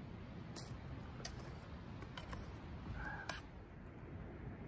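Metal spoon clinking and scraping against a metal cooking pot: a few sharp, separate ticks over a low steady background, with a brief high note about three seconds in.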